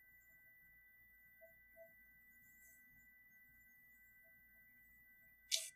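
Near silence, with a faint steady high-pitched tone throughout and one short, sharp burst of noise near the end.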